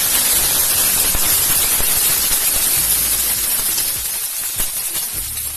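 Clams in their shells sizzling loudly in hot oil with fried onion and chili, just after being dropped into the pan; the hiss slowly eases as the pan recovers.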